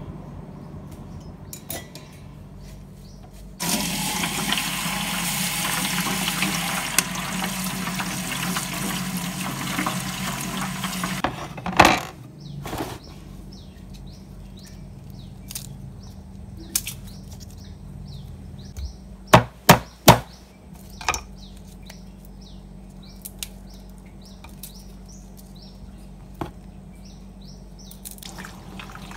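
A kitchen tap runs for about eight seconds, then stops. Later come several sharp knocks on a thick round wooden chopping block, three of them in quick succession.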